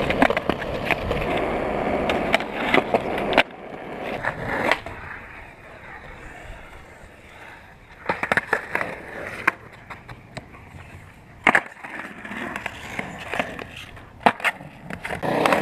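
Skateboard wheels rolling on concrete, then a quieter stretch broken by sharp clacks of the board popping and landing, the loudest about eleven and a half seconds in. Rolling starts up again near the end.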